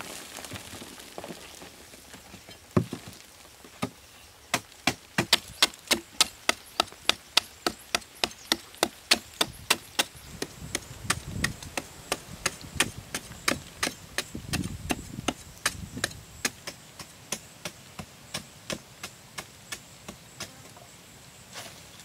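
A hand digging tool chipping into hard, dry earth in a steady rhythm of sharp knocks, about two to three a second, starting a few seconds in.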